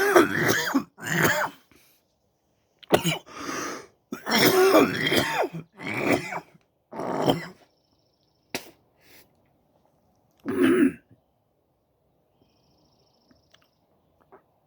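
A man's coughing fit: a run of coughs with throat clearing over about eleven seconds, then it stops.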